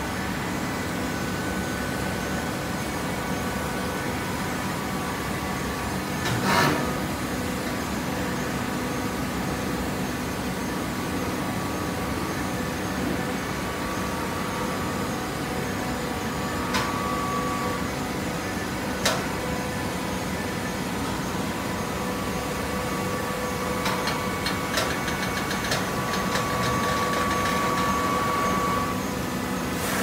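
Fully automatic horizontal hydraulic baler running, its motor and pump giving a steady hum with a few held tones. A loud clank comes about six seconds in, and sharp metallic clicks follow later. Near the end a higher steady tone comes in for a few seconds, then stops.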